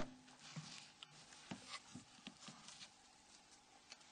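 Near silence with faint, scattered clicks and soft taps of the Nokia N93's plastic cover parts being handled and fitted together, with one sharper click right at the start.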